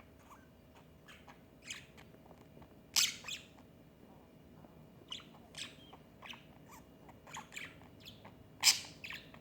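Pet parrot and parakeet chirping in short, scattered calls, with two loud sharp calls, one about three seconds in and one near the end.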